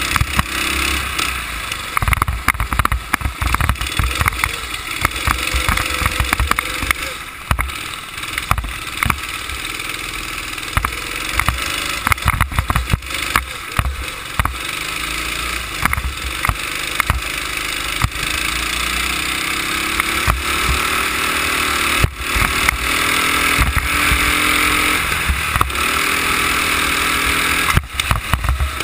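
Go-kart engine heard on board while lapping, its pitch rising and falling through the corners and climbing along a straight in the second half, with crackling gusts of wind buffeting the microphone.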